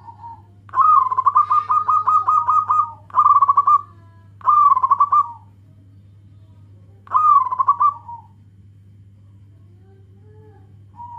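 Zebra dove (perkutut) cooing: a long, rapid string of staccato coo notes, about four or five a second, followed by three shorter cooing phrases, the last about seven seconds in.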